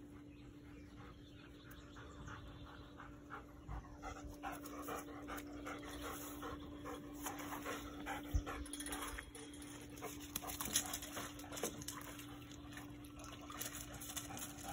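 Dog panting close by in quick, rhythmic breaths, starting about four seconds in and growing louder. A single low thump comes about halfway through.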